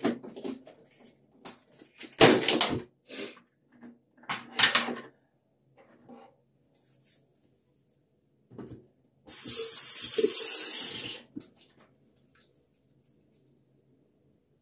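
Face washing at a sink: several short splashes of water, then a tap runs steadily for about two seconds and stops.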